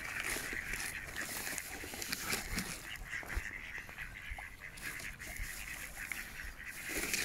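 A flock of mallards quacking repeatedly, with many short clicks and splashes mixed in.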